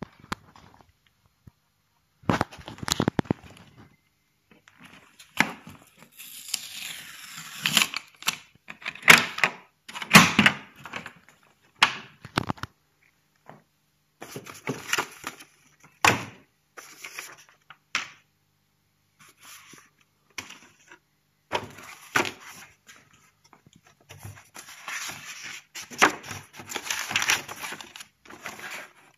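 Hands unpacking a plastic tool case: clicks and knocks of the case and its contents, and rustling of paper manuals and plastic bags, in irregular bursts with short pauses between them.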